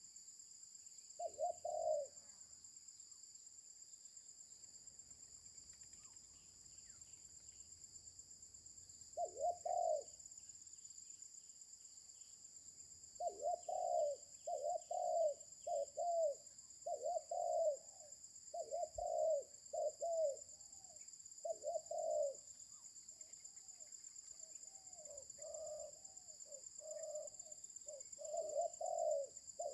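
Spotted dove cooing in a coarse, rough voice. It gives a short coo phrase about 1.5 s in and another about a third of the way through, then a long run of repeated coos through the middle and more again near the end.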